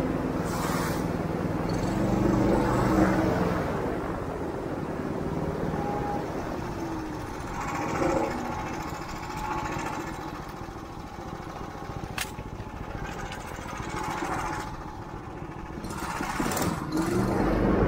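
Airboat engine and propeller running steadily, swelling louder about three seconds in and again near the end.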